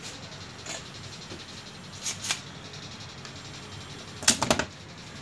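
Light clicks and knocks of a circuit board being handled over a steady low background: two small clicks about two seconds in, then a louder cluster of three or four a little after four seconds.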